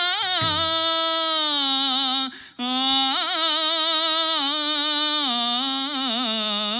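A man singing a wordless vowel melody unaccompanied into a microphone: long held notes with quick ornamental turns, and a short break for breath about two and a half seconds in. It imitates the vowel-only opening of a Tamil film song.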